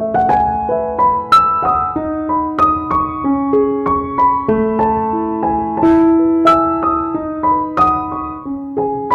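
Background piano music: a gentle melody of struck notes, about two a second, over lower held notes.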